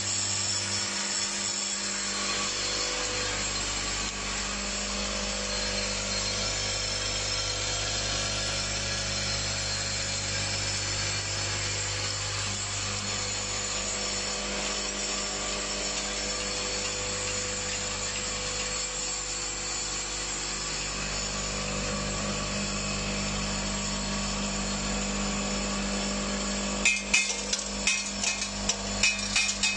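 Automatic screw-and-washer assembly machine running: its vibratory bowl feeders hum steadily under a dense hiss of rattling parts. About 27 seconds in, a fast, irregular clatter of sharp metal clicks comes in as screws feed down the rail to the assembly head.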